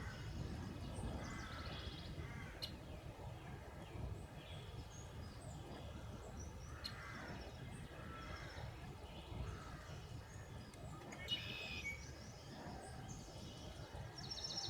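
Scattered bird calls over a faint, steady low rumble, with a short high trill near the end.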